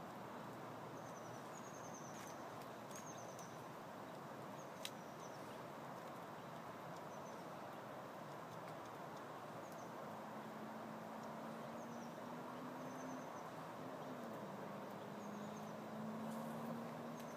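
Quiet outdoor woodland ambience: a steady background hiss with faint short high chirps repeating every second or so, and a single sharp click about five seconds in. A low steady hum comes in about halfway through, shifts pitch slightly, and holds to the end.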